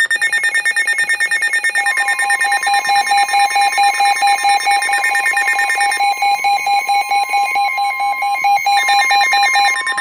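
Several NOAA weather radios, Midland and Eton units, sounding their alert alarms at once for a tornado warning: a loud, rapid beeping from the radios. About two seconds in, a steady high tone joins it, the broadcast 1050 Hz warning alarm tone. One of the higher beeps drops out for a few seconds after the middle, then returns.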